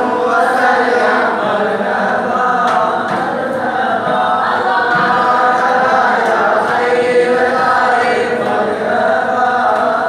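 A group of male voices chanting a devotional Ratheeb melody in unison for daff muttu, with a few sharp strikes on daff frame drums.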